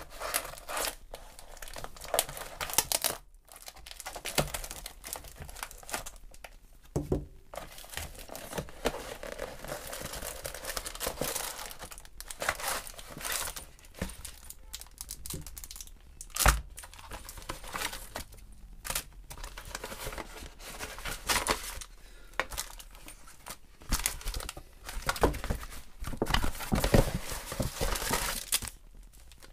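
Plastic courier envelope being opened and its contents handled: irregular crinkling and rustling of plastic and paper, with tearing.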